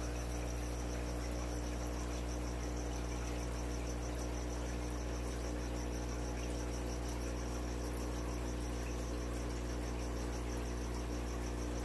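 Steady low electrical hum of aquarium equipment, with a faint high chirp pulsing evenly several times a second over it.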